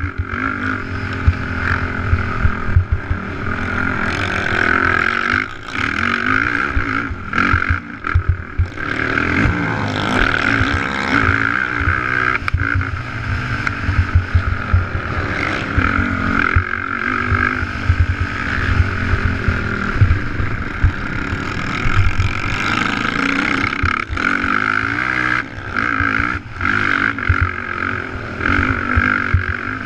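Sport ATV engine running hard at racing revs, heard from a camera mounted on the quad, with the revs rising and falling and dipping briefly several times. Low knocks from the rough dirt track run underneath.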